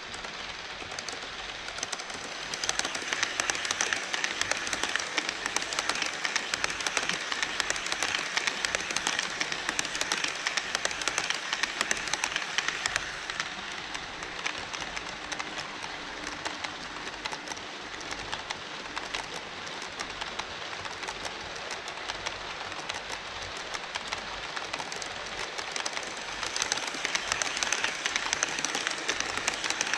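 HO scale model trains running on KATO Unitrack: a steady rattle of wheels with dense, rapid clicking over the rail joints. It swells about three seconds in and again near the end, as an E5 series Shinkansen model crosses the truss bridge.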